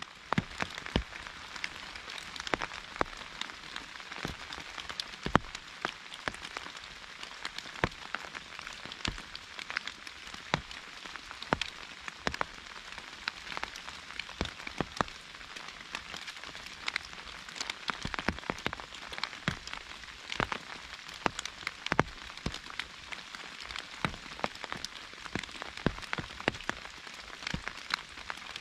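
Rain falling on an umbrella in a broadleaf forest: a steady hiss of rain with many sharp drops tapping at irregular intervals.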